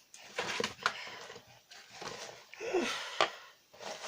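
Parcel packaging being handled and pulled open by hand: rustling of paper or plastic with scattered light knocks and clicks. There is a short vocal grunt or breath a little before the three-second mark.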